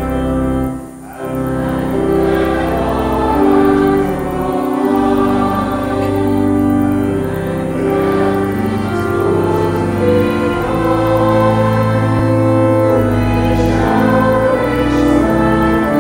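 Voices singing a hymn verse to organ accompaniment, in slow held chords. There is a short dip in the sound about a second in, between phrases.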